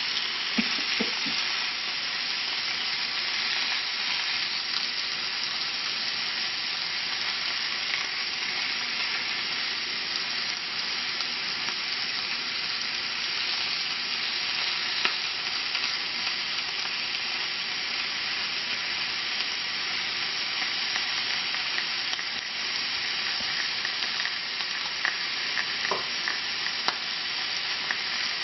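Marinated chicken breasts sizzling steadily on a hot cast-iron grill pan, searing in their black grill marks. There are a few light clicks about halfway through and again near the end.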